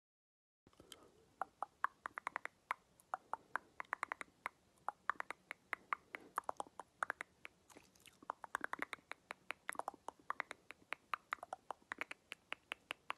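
Mouth clicks made with the tongue and lips close to the microphone, in quick runs whose pitch rises and falls, with short pauses between runs.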